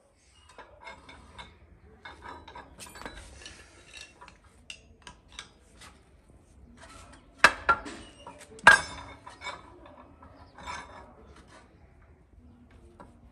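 Hand wrench working the bolts of a Ford 3600 tractor's rear axle housing being unbolted: scattered metallic clicks and taps of steel tool on bolts and casting, with two louder metal clanks about halfway through.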